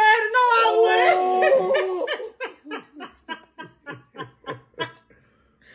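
Laughter: a long, high, squealing laugh for about two seconds, then a run of short laugh pulses, about four a second, that die away near the end.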